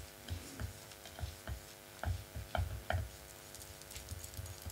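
Small paintbrush dabbing gilding glue onto a glass pumpkin: a run of light, uneven ticks, a few a second, with soft knocks under them, fainter after about three seconds.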